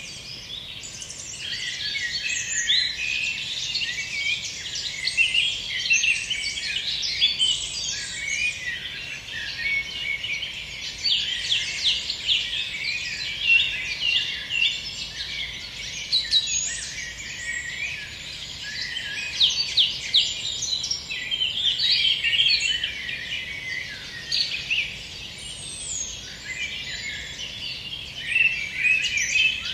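Several songbirds singing at once, a dense, continuous mix of overlapping chirps and trills.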